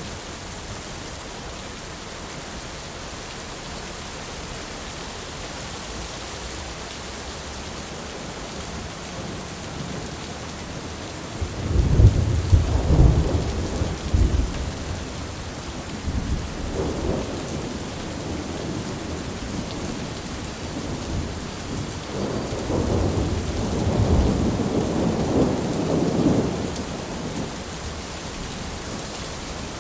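Thunderstorm: steady heavy rain with rolling thunder. A loud crack-and-rumble comes about twelve seconds in, a smaller rumble follows, and a longer roll of thunder builds and fades in the second half.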